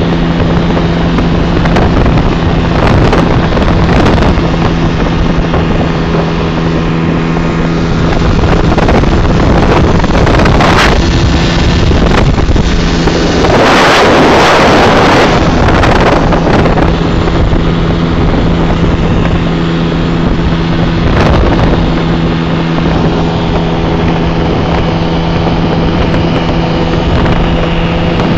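A motor running at a steady pitch under heavy wind noise buffeting the microphone, the wind rising to a loud gust about halfway through.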